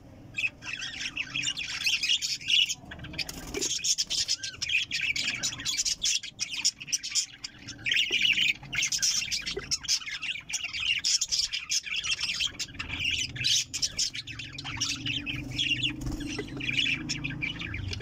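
Budgerigars chattering, a fast, unbroken run of high chirps and squawks that starts about half a second in.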